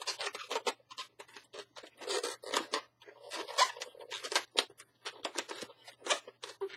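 Latex twisting balloons, a black 160 against yellow, rubbing and squeaking as they are twisted and wrapped, in quick, uneven strokes.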